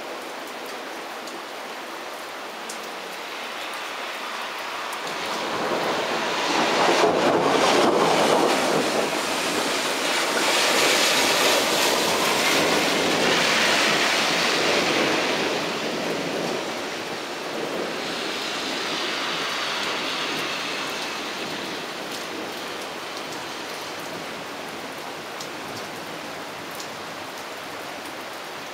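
Steady rain falling during a thunderstorm. A long rumble of thunder builds about five seconds in, rolls on for roughly ten seconds, and fades back to the rain.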